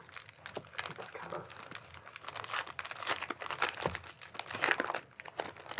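Foil booster pack wrappers crinkling and being torn open, a dense run of small crackles and rustles.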